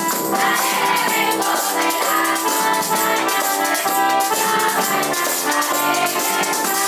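Live Dominican Christmas aguinaldo music: an electronic keyboard playing a melody over the steady scrape of a metal güira and hand drums.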